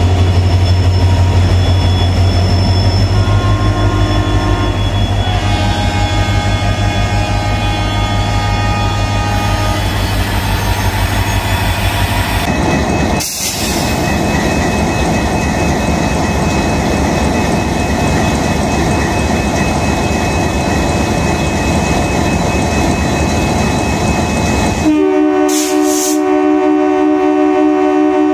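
Diesel locomotive engines running with a deep steady hum, while fainter horn tones come and go. Near the end a loud, steady locomotive air horn starts and holds.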